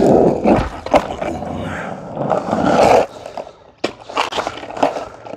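Skateboard wheels rolling loudly over rough alley asphalt during a flip-trick attempt: a sharp pop of the tail right at the start, a clack about a second in, then the rolling fades after about three seconds and a couple of sharp board clacks follow near the end.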